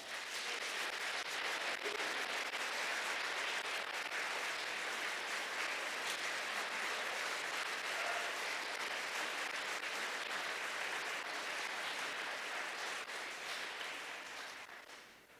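Audience applauding, a steady spell of clapping that starts as the music ends and dies away near the end.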